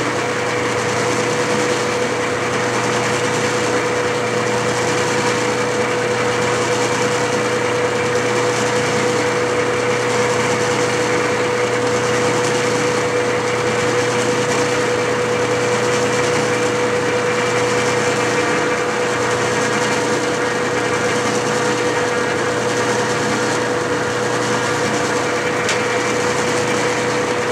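Clausing metal lathe running steadily, its single-point tool taking a threading pass along an Acme thread; a constant hum with one clear steady tone.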